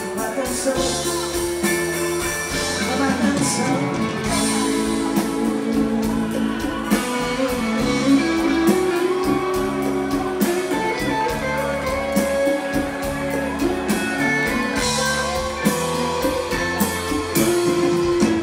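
Live band playing a song: singers over electric guitar, keyboard and drums, with a steady beat, as heard from the audience in a large hall.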